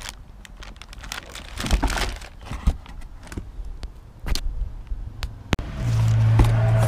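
Plastic wrapping on a new brake rotor crinkling, with cardboard rotor boxes rustling and knocking as they are handled. A steady low hum starts near the end and is louder than the handling.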